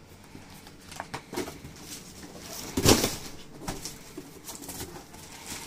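Handling noise from packaging: short rustles and clicks as a boxed product is picked over, with one louder rustle about three seconds in.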